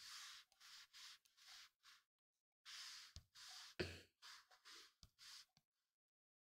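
Near silence, with a person's faint breathing in short hissy puffs and a soft knock a little before four seconds in.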